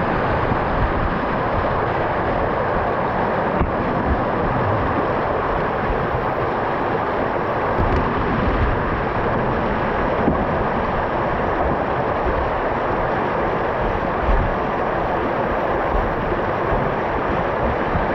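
Shallow river rapids rushing over a rocky bed and around a canoe hull and wading legs: a steady, loud rush of water with a deep rumble underneath, and a few light knocks.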